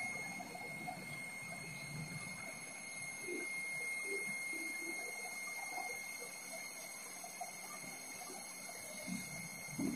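A faint, steady high-pitched whine over soft background hiss.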